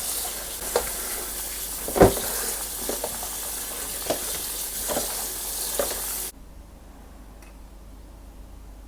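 Tap water running in a steady hiss while a makeup sponge is soaked under it, with a few soft knocks and squelches; the water is shut off abruptly about six seconds in.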